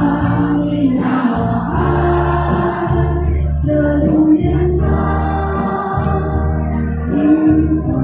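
Many voices singing a slow song together over amplified accompaniment, long held notes changing every second or so above a steady bass line.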